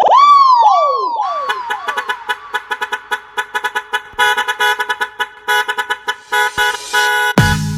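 Break in a budots dance remix: a sampled truck horn chord, chopped into rapid rhythmic stutters with no bass under it. It opens with a swooping, pitch-falling effect that echoes several times and fades. The heavy bass and beat drop back in near the end.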